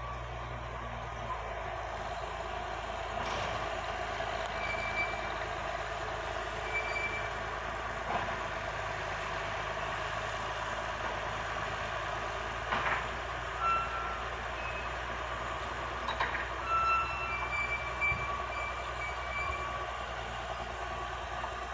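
Bucyrus dragline's engine running steadily under load as the machine swings and hoists its bucket. There are occasional metallic clanks and brief high squeaks, more of them in the second half.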